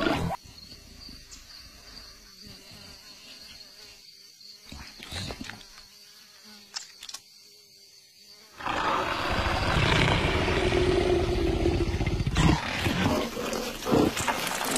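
Faint savanna ambience with a thin insect buzz and a few small knocks. Then, a little past halfway, a loud, rough growling starts and runs on with a few harder jolts near the end: a cartoon leopard's growl.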